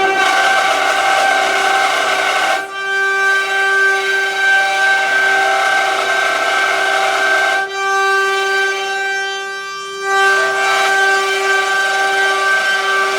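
Six-spindle CNC wood carving router running, its spindles giving a steady high whine with overtones over a rushing cutting noise that dips briefly a couple of times.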